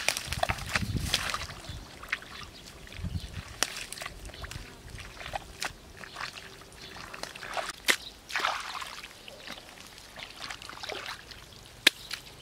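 Hands and bare feet working wet mud and shallow muddy water: irregular squelching and sloshing, with a few sharp clicks scattered through.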